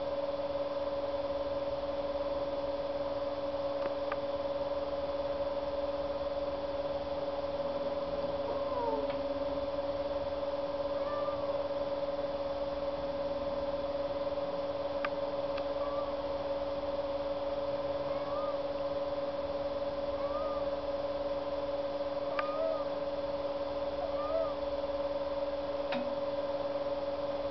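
Pet prairie dog snoring in its sleep: short, faint squeaky notes every two to three seconds over a steady electrical hum.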